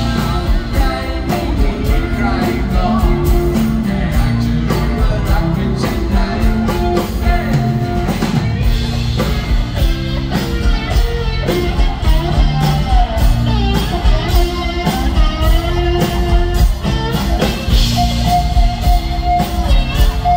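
Live rock band playing through a PA: a steady drum beat with bass and guitars, and a lead electric guitar line with long held notes near the end.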